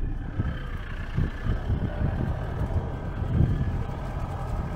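Land Rover Defender driving down a rough dirt track: the engine running low and steady, with irregular low thumps and jolts from the bumpy track.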